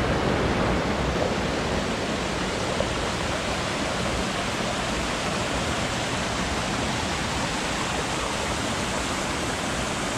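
Fast-flowing stream rushing steadily, a continuous hiss of running water.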